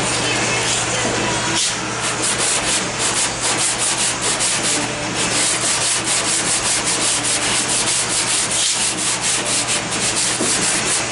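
Hand sanding block with sandpaper rubbing over cured body filler on a car's steel dog-leg panel. It is pushed in fast back-and-forth strokes, about three a second, with brief pauses twice.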